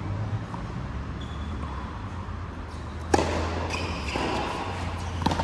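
Two sharp ball-on-racket hits in a large hall, a loud one about three seconds in with a short echo and a lighter one near the end, over a steady low hum.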